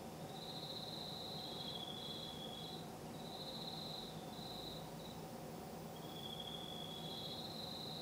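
Crickets trilling at night: high-pitched buzzing trills in bursts, two callers at slightly different pitches overlapping, over a faint steady low hum.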